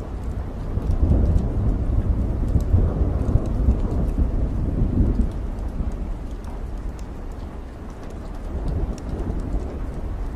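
Steady rain with a long roll of thunder: the deep rumble swells about a second in, fades after about five seconds, and rises again faintly near the end.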